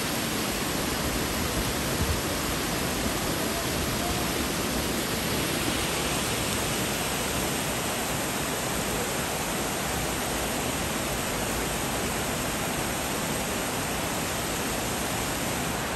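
Water rushing steadily over a river weir, a constant, even rush.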